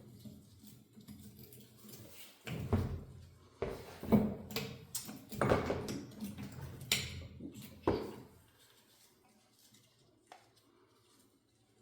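Tools working on the metal backhoe control assembly: an irregular series of knocks, clunks and scraping for several seconds, then it goes quiet. It is forceful work that the operator reckons is not good for the hydraulic controls.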